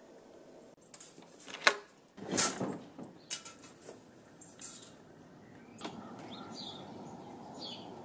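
A sliding balcony door unlatched and slid open in a few sharp clacks and scrapes, the loudest about two seconds in. Then a steady outdoor hush with birds chirping.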